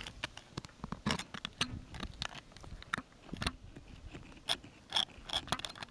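A rubber hose being pushed and worked onto a solar pool heater panel's inlet fitting, making irregular clicks and rubbing scrapes.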